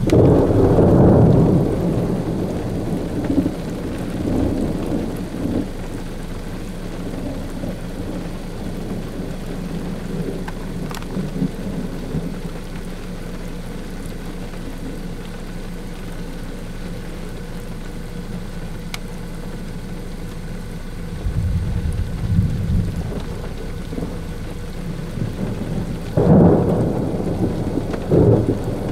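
Thunder rumbling over steady rain. A loud peal at the start fades out over several seconds, and two more rumbles come near the end.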